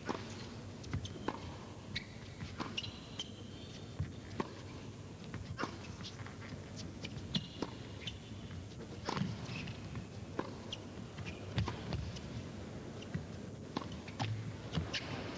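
Indoor tennis rally: a serve, then the ball struck back and forth with racquet hits and bounces about once a second, with short high squeaks of players' shoes on the court.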